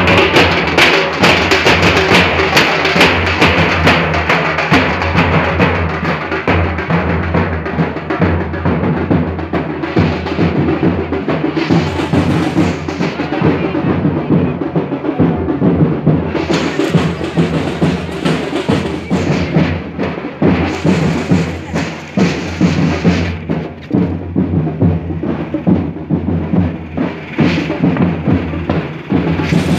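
Nasik band dhols, large barrel drums, beaten in a continuous, dense rhythm, with a steady low hum underneath.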